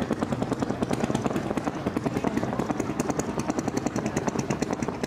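An engine running steadily with a rapid, even chugging beat of about ten pulses a second.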